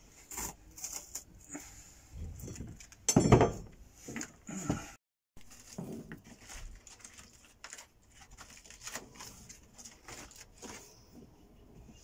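Broken pieces of sealed chipboard floor being pried and pulled up by hand, with irregular scraping, crumbling and small knocks; a louder knock about three seconds in, and another a little later.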